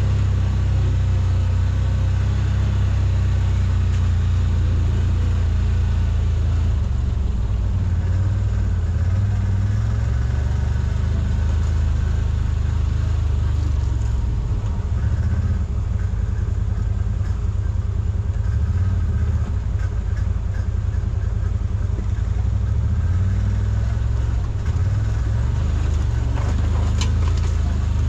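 CFMOTO ZForce 950 side-by-side's V-twin engine running at low, varying throttle on a rough trail, heard from on board as a steady low drone. A few sharp knocks come near the end.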